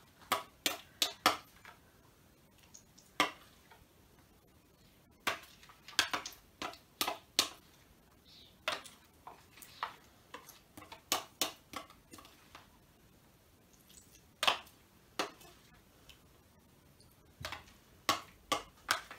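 Spoon clicking and tapping against a plastic bowl while stirring thickening slime, in irregular runs of quick clicks with short pauses between.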